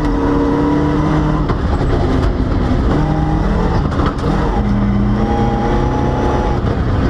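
Volvo rally car engine running hard on a gravel stage. Its pitch holds for a second or so and then jumps up or down as it shifts gears and lifts off the throttle.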